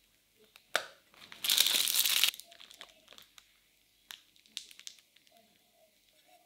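Plastic piping bag crinkling as it is gripped and squeezed to pipe chocolate whipped cream, loudest for about a second near the start, followed by a few fainter rustles and clicks.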